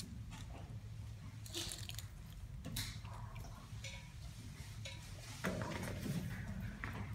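Young Bornean-type orangutan infant mouthing and biting at a large tomato that is too big for her mouth: wet squishing with scattered sharp clicks and snaps, busier near the end, over a steady low hum.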